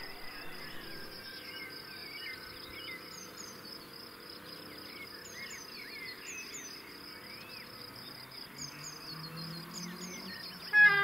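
Steady high-pitched insect trill with birds chirping over it. A low rumble of an approaching electric locomotive grows louder near the end, and a sudden loud sound comes just before the end.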